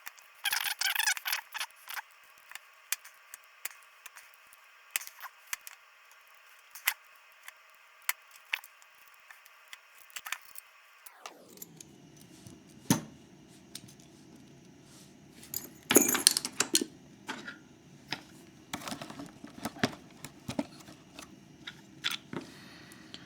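Scattered light metallic clicks and clinks from a picked euro cylinder lock and small tools being handled, with a denser burst of clinks about sixteen seconds in.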